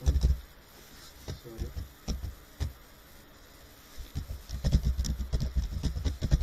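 Computer keyboard typing: a few scattered keystrokes with dull low thumps, then a quicker run of typing starting about four seconds in.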